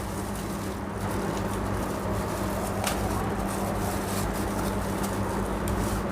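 Marcel rechargeable table fan running: a steady motor hum with the rush of its blades' air.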